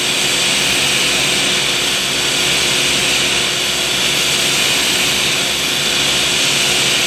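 TIG welding arc hissing steadily as the torch cup is walked along a steel pipe, fusing the metal with no filler wire added. The current is set low, a little too cold by the welder's own word.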